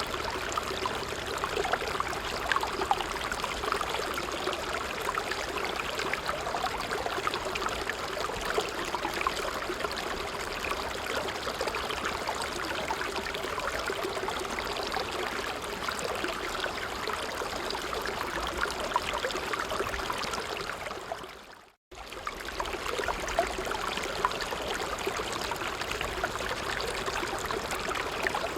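A creek running steadily, with a continuous babble of small splashes and trickles. The sound fades out briefly and comes straight back about three quarters of the way through.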